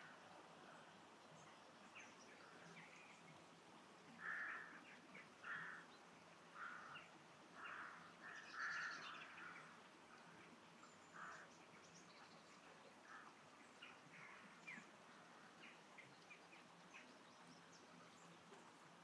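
Dawn chorus: a crow-family bird calls with a run of about six rough caws between about four and eleven seconds in, over faint scattered chirps of small birds.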